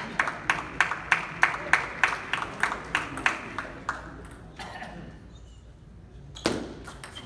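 Table tennis ball clicking in a quick, regular series, about three a second, fading out about four seconds in. Near the end a sharper, louder hit and a few more ball clicks as play starts again.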